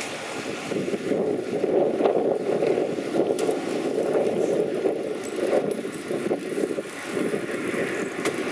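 Wind buffeting the microphone while cycling, a rising and falling rush mixed with bicycle tyres rolling over concrete pavement.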